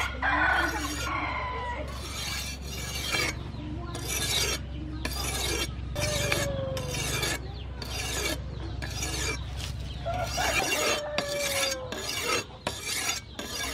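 Leaf-spring steel kitchen knife blade stroked back and forth across a sharpening stone, a rasping scrape repeating about one and a half times a second, as the edge is honed.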